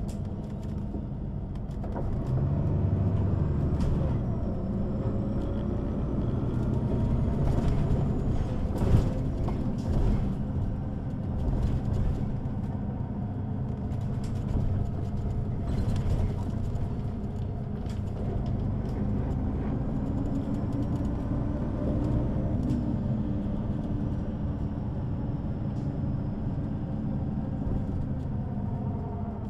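2003 Neoplan N 4416 city bus under way: the engine runs steadily and the ZF gearbox whines, its pitch slowly rising and falling as the bus changes speed. A sharp knock about nine seconds in.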